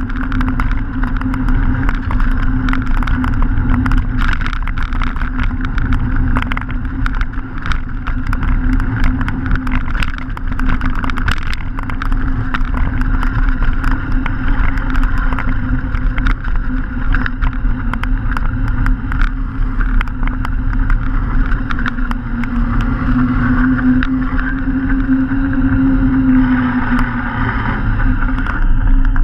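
Mountain bike with knobbly tyres rolling downhill on a gravel and concrete lane onto tarmac: a steady tyre rumble with a low hum that swells about three quarters of the way through, and frequent sharp clicks and rattles from the bike and loose stones.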